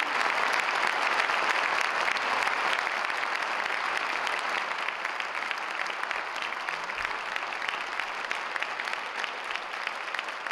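A large audience applauding, dense clapping that slowly tapers off.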